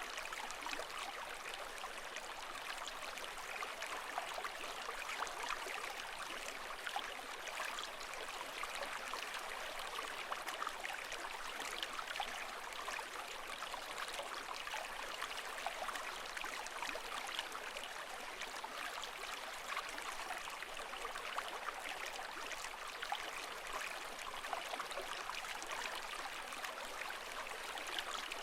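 Running water at an even level, a steady rushing with fine trickling and splashing detail and no rise and fall of waves.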